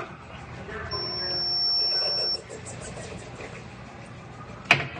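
Resistance spot welder gun firing a weld: a buzz with a steady high-pitched tone for about a second and a half, starting about a second in. A single sharp clack near the end.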